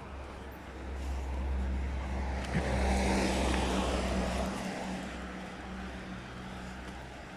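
A car driving past on the street, its tyre and engine noise swelling to a peak about three seconds in and then fading as it moves away.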